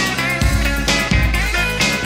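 Background music with a steady beat, deep bass notes and guitar.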